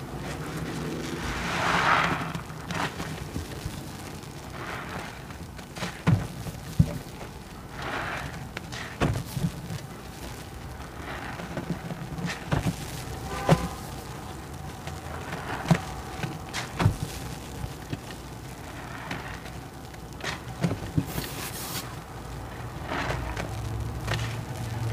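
Soapy sponges and handfuls of thick suds squeezed over a sink of foamy water: repeated wet squelching swells, with several sharp knocks scattered through.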